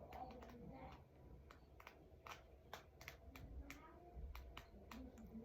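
Near silence with a dozen or so faint, irregularly spaced clicks and taps over a low room hum.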